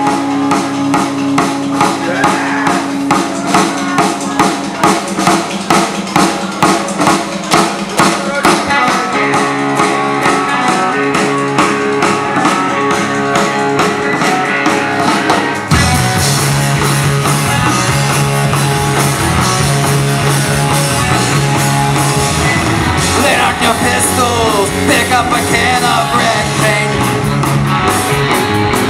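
Live punk rock band playing a song on electric guitar, bass guitar and drum kit. A little past halfway the band comes in harder and the sound turns fuller, with deep bass notes.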